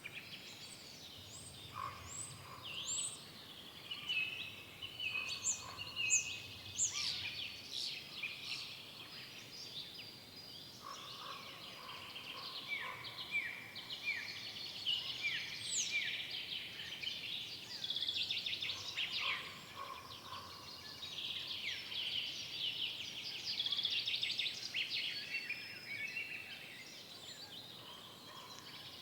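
Several forest songbirds singing at once in an overlapping chorus of chirps, trills and short falling whistles. There is a run of repeated down-slurred notes midway through.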